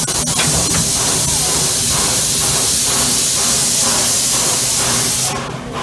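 Steam locomotive hissing loudly as steam is let off, with a faint regular chuff underneath, about two and a half beats a second. The hiss cuts off suddenly near the end.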